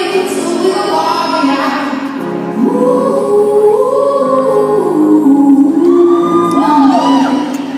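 A slow song with a singing voice, long held notes gliding up and down over the accompaniment, played in a large gymnasium.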